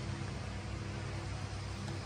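Steady workshop machine noise: a low, even hum under a constant hiss.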